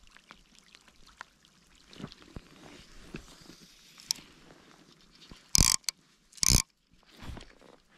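Faint hiss of steady drizzle with small scattered ticks from fly reel and line handling, then, about a second apart near the end, two short loud rushes of noise during fly casting.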